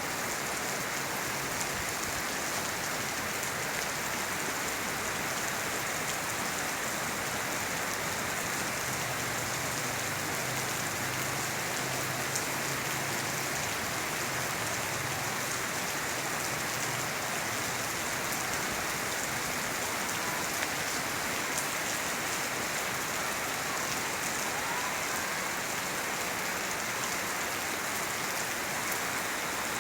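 Steady rain falling on surfaces: an even, unbroken hiss.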